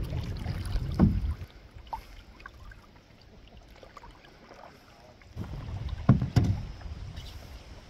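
Canoe being paddled on choppy water in wind: a low wind rumble on the microphone and water splashing, with louder splashes about a second in and again around six seconds. Quieter in the middle.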